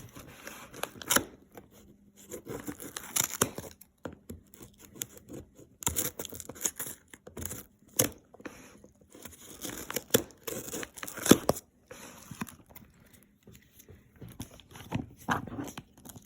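Shipping package being opened by hand: irregular tearing and crinkling of packaging, with scrapes and sharp snaps in between.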